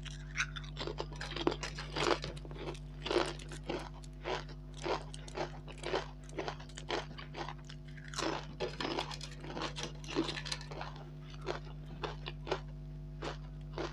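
Potato chips being bitten and chewed close to the microphone: sharp, crisp crunches, about two or three a second, over a steady low electrical hum.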